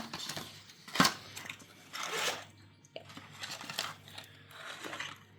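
Crinkling and rustling of chocolate-egg packaging as the small wrapped chocolates are taken out, with a sharp knock about a second in and several short rustles after it.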